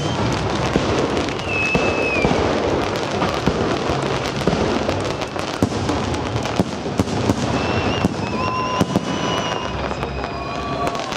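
Fireworks display: a dense run of bangs and crackles from bursting aerial shells and ground effects over a continuous crackling hiss. A few high whistles come about two seconds in and again from about eight seconds.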